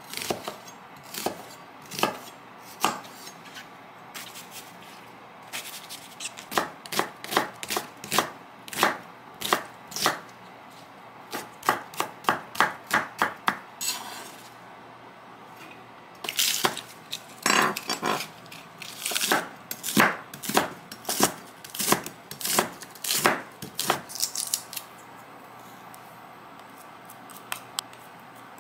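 Chef's knife chopping onion on a wooden cutting board: runs of quick, sharp knocks with short pauses between.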